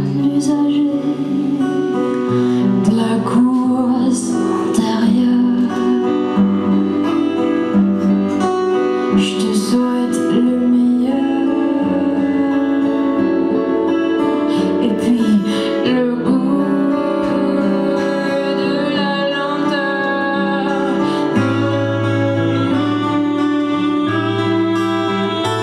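A woman singing a song with acoustic guitar accompaniment.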